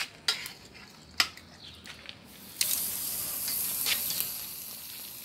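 A couple of sharp clicks, then about two and a half seconds in, marinated chicken laid on the hot grate of a charcoal grill starts sizzling steadily.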